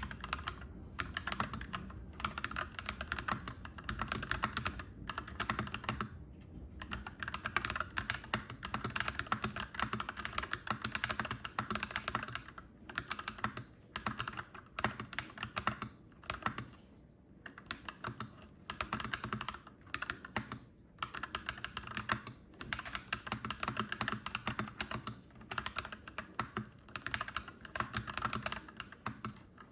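Clacky mechanical keyboard being typed on steadily, a quick run of key clicks broken by a few short pauses.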